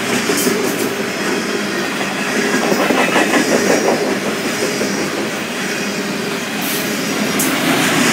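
Freight train of covered hopper cars rolling past at close range: a steady rumble and clatter of steel wheels on the rails, with a few sharp clicks.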